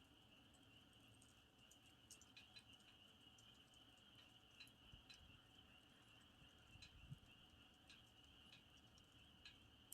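Faint campfire burning with scattered small crackles and snaps at irregular intervals, over a steady high-pitched trill.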